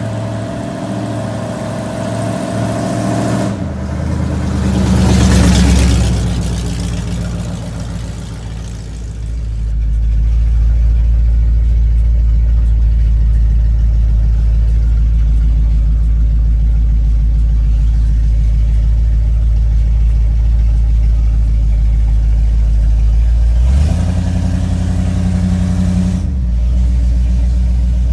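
A 454 big-block V8 in a 1988 Chevrolet Suburban running. It revs up to a loud peak about five seconds in, then settles into a steady low drone, with a short change in the note near the end.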